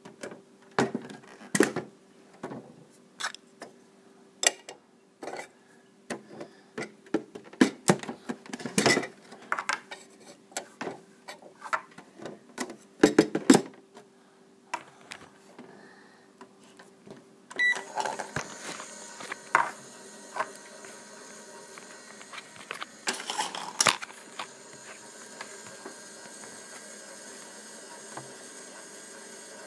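Toy microwave oven being handled: a string of sharp plastic clicks and knocks. About two-thirds of the way in comes a short beep, then a steady hum that carries on as the toy runs.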